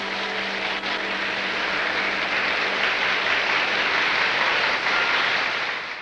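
Audience applauding at the end of a live song recording, with the song's last low held note fading out under it during the first half; the sound cuts off abruptly at the end.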